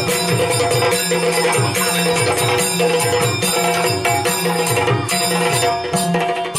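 Yakshagana dance accompaniment: maddale drum strokes about twice a second, with sharp strikes in the highs, over a steady drone. No singing.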